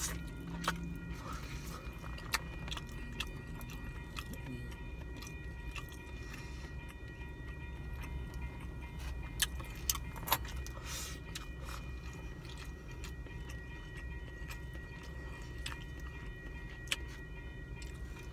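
Plastic fork clicking and scraping against a foam takeout container, with chewing, over a steady low hum inside a car. The clicks are sharp and scattered: a few early on, a cluster of three about halfway through, and one more near the end.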